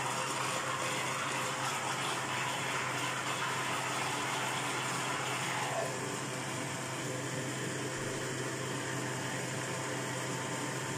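Electric countertop blender running steadily, blending liquid baghrir batter: a constant motor hum under a rushing whir. The whir grows a little quieter and duller about six seconds in.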